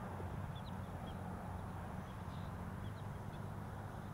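Small birds chirping faintly in short, scattered calls over a steady low rumble of outdoor field ambience.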